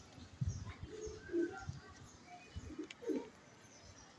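Domestic pigeons cooing several times in low, soft calls, with a few low thumps on the microphone.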